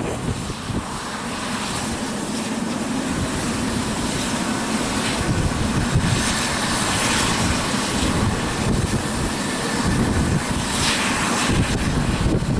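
Eurocopter EC135 P2+ helicopter running on the pad with its rotors turning, still on its skids: the twin turboshaft engines and enclosed Fenestron tail rotor whine steadily over the rhythmic beat of the main rotor blades.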